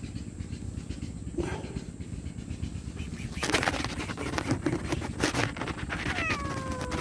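Steady low rumble with a run of crackling clicks from about halfway, then a cat's drawn-out meow starting near the end, dropping in pitch and then held level.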